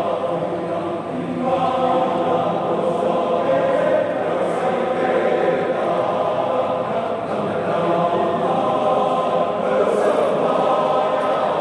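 A men's choir singing together, voices held on sustained notes without a break.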